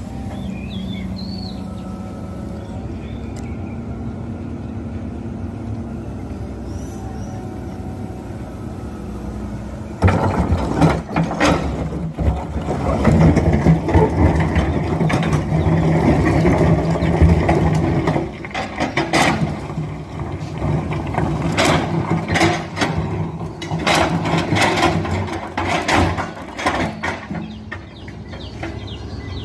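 Excavator engine running steadily. About ten seconds in the sound changes abruptly to a louder run of the engine with repeated clanks and knocks of the working machine.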